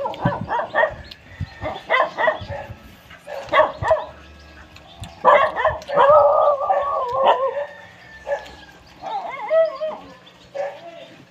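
A dog barking in short groups of barks, with a longer drawn-out whining cry about five seconds in, then more short barks near the end.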